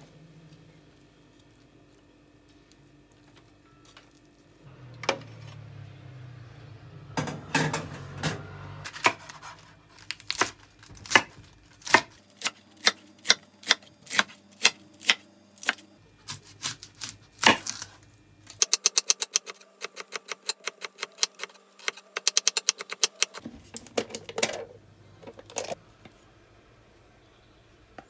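Kitchen knife chopping lettuce on a wooden chopping board. First come steady single cuts, about one and a half a second, then a quick run of rapid chopping lasting several seconds, and a few last cuts.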